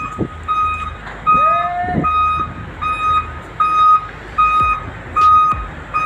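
A construction vehicle's reversing alarm beeping steadily, about eight evenly spaced single-pitch beeps, over a low engine rumble. A brief gliding whistle-like tone sounds about a second in.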